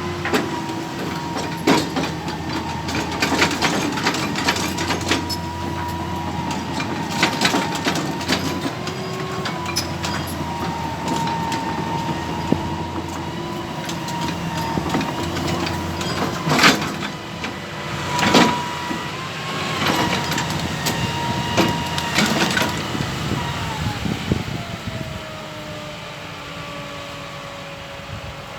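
Excavator's diesel engine running under load with a steady hydraulic whine, punctuated by repeated knocks and clanks as it handles logs. Near the end the whine glides down in pitch and the engine quietens as the revs fall.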